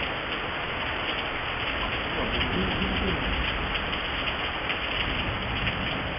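Steady rain at the start of a thunderstorm, with many close drops ticking on nearby surfaces.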